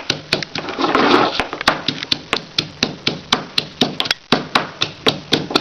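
Pestle pounding thuthuvalai leaves in a mortar, a steady run of sharp knocks at about four strokes a second.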